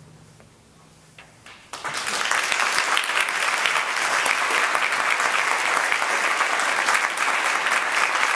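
The band's last chord rings away into a brief hush with a few faint clicks. Then audience applause breaks out about two seconds in and goes on steadily.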